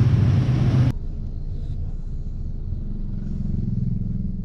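Busy street-market noise that cuts off abruptly about a second in, giving way to the steady low rumble of a car's cabin.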